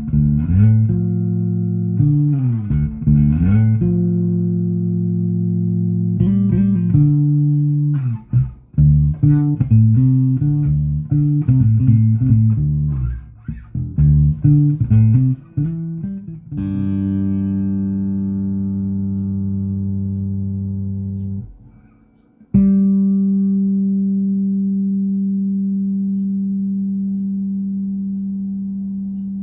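Fender Player Precision Bass fitted with a Hi-Mass bridge, played solo. First comes a run of plucked notes with slides, then a long note left to ring. That note is cut off about 21 seconds in and another is struck, which rings and slowly fades.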